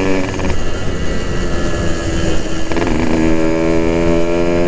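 Yamaha RX-King two-stroke motorcycle engine running on the move. Its note wavers about a third of a second in, then settles back into a steady tone about three seconds in.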